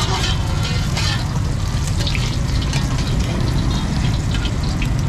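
Fried rice being stir-fried in woks over gas burners. The burners make a steady low rush, the food sizzles, and metal spatulas scrape and clink against the woks now and then.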